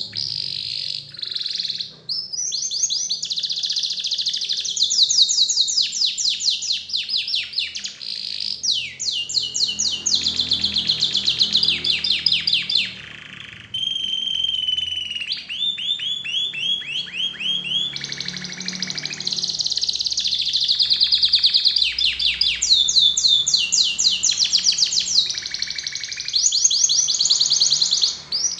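Canary singing a long, almost continuous song of fast rolling trills, each phrase a rapid run of repeated notes. The song breaks briefly about two seconds in and again about halfway through.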